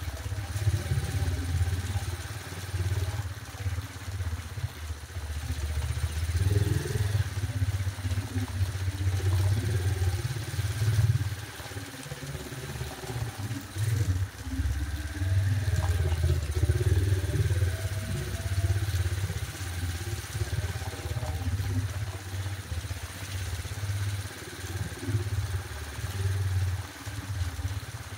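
Motorcycle running while being ridden along a road, a continuous low rumble that swells and eases.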